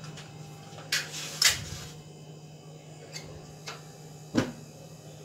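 A few sharp clicks and knocks from a steel idli cooker and gas stove being handled, the loudest about a second and a half in and again after four seconds, over a steady low hum.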